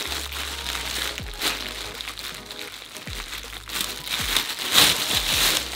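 Clear plastic wrapping crinkling and crackling as it is torn and pulled off a new backpack by hand, loudest near the end.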